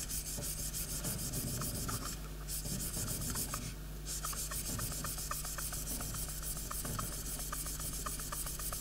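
Flat back of a steel chisel rubbed back and forth on wet 1500-grit abrasive paper over glass, a steady run of quick scraping strokes with two short breaks. It is the polishing stage, taking the abrasive's scratch marks out of the chisel's face.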